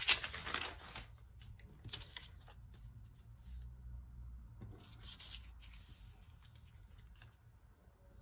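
Paper rustling and sliding as small cut-out magazine pieces are picked up and laid on a sheet of drawing paper, loudest in the first second, then fainter rustles and light taps.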